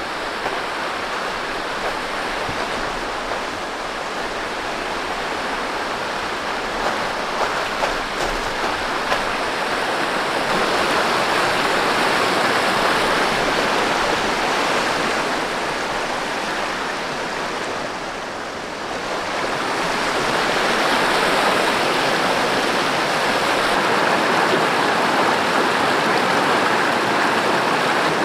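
A mountain river rushing, a steady wash of moving water that grows louder about ten seconds in, dips briefly, then swells again.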